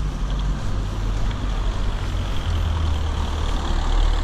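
A car's engine and road noise, heard from inside the moving car: a steady low drone.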